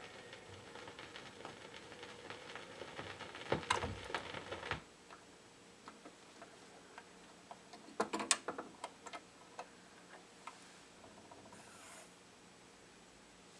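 The last faint notes of a song on a 45 rpm vinyl single, which stop about five seconds in. After that only the stylus's surface noise is left: low hiss with scattered ticks and clicks from the grooves, and a short run of louder clicks around the middle.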